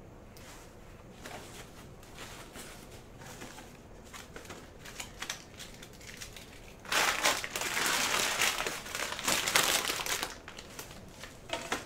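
Plastic packaging wrap being handled and crumpled, with quiet rustles and light knocks at first and then a loud stretch of crinkling for about three seconds in the second half.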